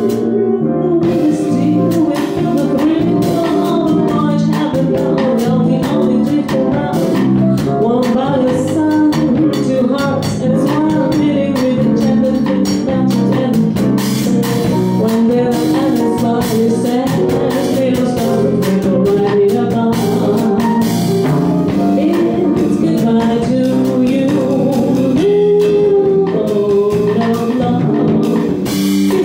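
Live band playing a jazzy song: a woman singing over electric bass, guitar, piano and drum kit, at a steady even tempo.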